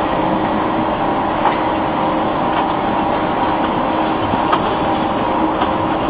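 Concrete-block plant machinery running steadily: a pan mixer churning damp concrete mix, together with a belt conveyor. Two small clicks sound about a second and a half and four and a half seconds in.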